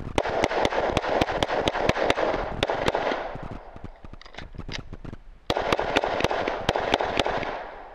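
Semi-automatic pistol fired in two rapid strings of shots, about four shots a second, the first string lasting about three seconds and the second starting after a pause of about two seconds.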